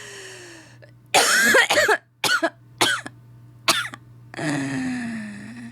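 A woman coughing and laughing: a falling breathy exhale, then a loud cough-laugh burst about a second in, three short coughs, and a long breathy groan falling in pitch near the end.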